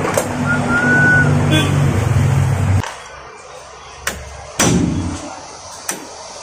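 A steady engine hum for the first three seconds that cuts off abruptly, then a few sharp metal taps of a punch being struck against the staked collar of a rear axle nut to free it.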